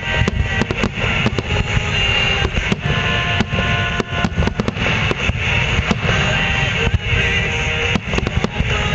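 Aerial fireworks shells bursting in a rapid, irregular series of bangs and crackles over music.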